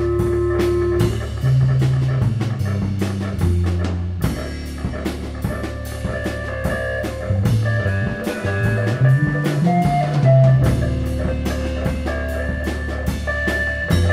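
Instrumental heavy space-rock jam: drum kit keeping a steady beat under a sustained bass line and electric guitar.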